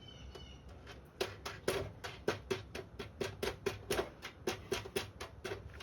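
A quick run of light, sharp clicks, about four or five a second, starting about a second in, from handling the new quartz clock movement and its small fitting hardware while it is mounted.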